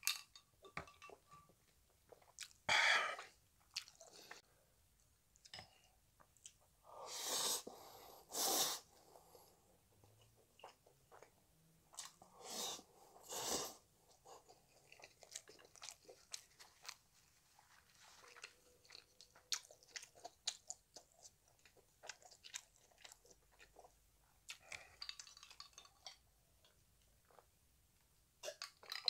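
Close-up eating sounds: chewing jjapaghetti noodles, with steady small wet clicks. There are several louder slurps, around 3 s, around 7 to 9 s and around 12 to 14 s.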